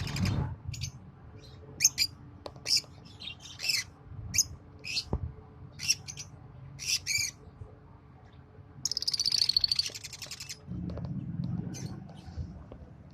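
Lovebirds chirping: a string of short, sharp calls, then a rapid buzzy chatter about nine seconds in, followed by a low rumbling noise.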